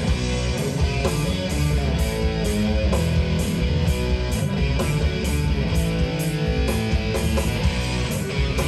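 Live rock band playing: electric guitar and bass over drums with a steady beat.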